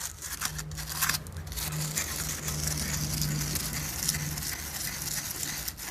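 Wire brush scrubbing the large steel retaining circlip of a front wheel bearing: a continuous scratchy rasping of bristles on metal, with a low steady hum underneath.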